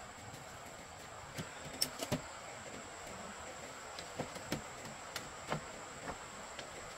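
About ten scattered light knocks and clacks at irregular intervals, over a steady high-pitched insect drone.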